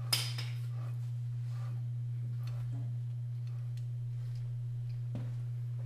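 A steady low hum runs throughout, probably electrical. Right at the start there is a short scraping burst, and a few faint clicks and knocks follow, one of them near the end.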